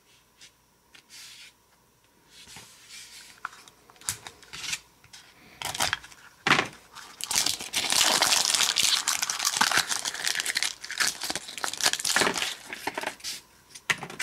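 Clicks of a hard plastic toy capsule being handled and opened, then several seconds of crinkling and tearing of a thin plastic wrapper, with a few more clicks near the end.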